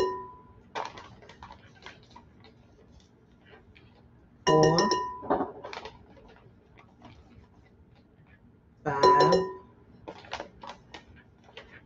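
Metal tablespoon scooping coconut flour from a paper bag and tapping on a glass mixing bowl: scattered light clicks and scrapes. A short, loud pitched tone cuts in twice, about four and a half seconds apart.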